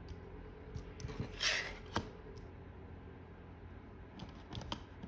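Tarot cards being slid and rearranged on a table: a brief swish about a second in, with scattered light clicks and taps.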